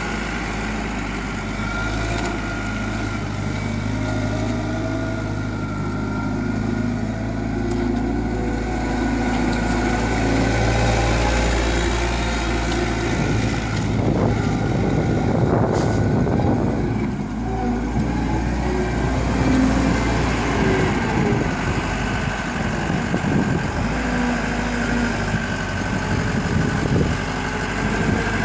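Diesel engine of a Terex TL100 compact wheel loader running as the machine drives and manoeuvres, its engine note rising and falling with throttle, rougher in the second half.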